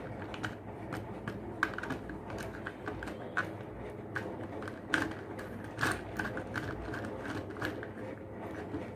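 Irregular small clicks and taps from a screwdriver and wire being worked at a miniature circuit breaker's terminal, as a conductor is tightened in; a few sharper clicks stand out.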